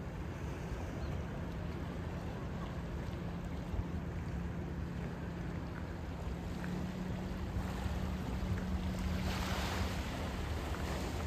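A boat engine running steadily, a low hum that grows a little stronger in the second half, over a low rumble of wind on the microphone. A brief rushing noise comes about nine seconds in.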